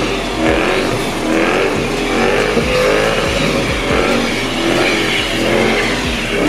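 Drift car's engine revving hard, its pitch rising and falling again and again as the car is thrown around in a slide.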